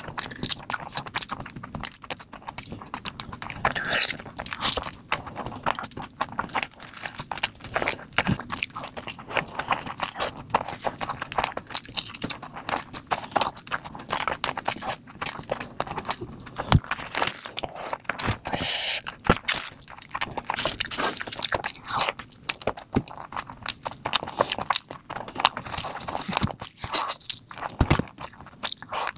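Mukbang eating sounds: a person chewing and biting mouthfuls of spicy mutton and rice eaten by hand, a dense, irregular run of sharp mouth clicks.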